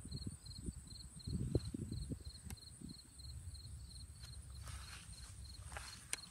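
An insect chirping in an even rhythm, about two short high-pitched chirps a second. Underneath is a low rumble on the microphone, loudest about a second and a half in, with a couple of sharp clicks.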